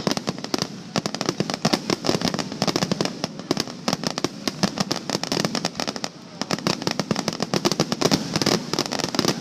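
Fireworks finale barrage: a dense, rapid run of sharp bursts and crackles, many per second, easing briefly about six seconds in before building again.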